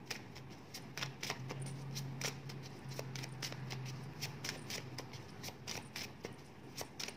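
Paper divination word cards being handled and laid out on a table: light irregular clicks and taps, several a second. A low steady hum comes in about a second in and fades a few seconds later.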